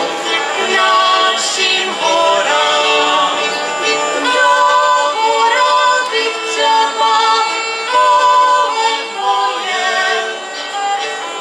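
Czech folk song sung by a group of voices over a folk band's instrumental accompaniment, in short held notes that change about every half second.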